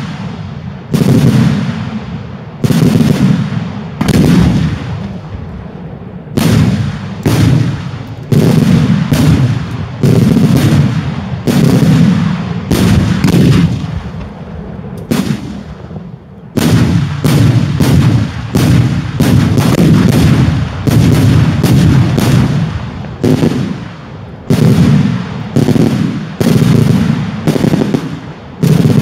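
Daylight fireworks bursting overhead: a long, irregular series of loud bangs, each trailing off in a rolling rumble, thickening into a quick run of bursts in the second half.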